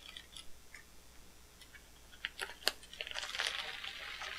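Shiny black plastic packaging wrap being handled: a few light clicks and taps, then steady crinkling and crackling from about three seconds in as it is pulled at by hand.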